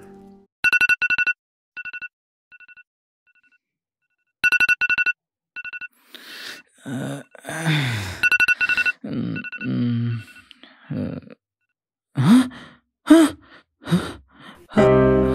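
Smartphone alarm beeping in quick groups of about four short two-tone beeps, repeating every few seconds. From about halfway a man groans and sighs as he wakes, with a few short grunts near the end.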